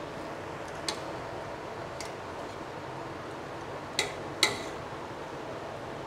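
Steel spoon clinking against a metal pot while biryani is mixed and turned over. There are a few light clicks, then two sharper clinks about half a second apart near the end.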